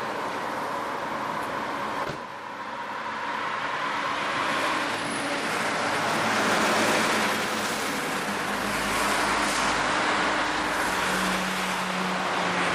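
Highway traffic: cars and lorries passing in a steady rush of tyre and engine noise that swells in the middle. A deep rumble of a heavy vehicle comes about two-thirds of the way through, and a steady engine drone comes in near the end.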